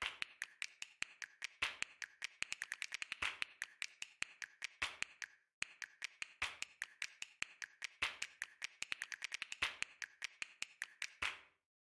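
Faint, quick, irregular clicks and taps of a plastic toy spider being handled and pressed into a shadow box, with a brief pause about halfway through.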